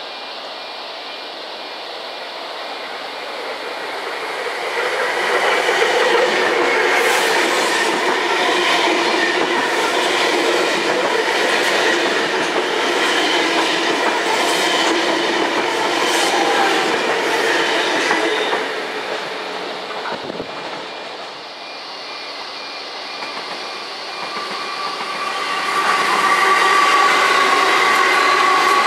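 Double-deck electric intercity train approaching and passing at speed, its wheels clicking over the rail joints. About two-thirds of the way through, the sound changes to diesel-electric freight locomotives drawing near, engines running with a steady hum that grows louder.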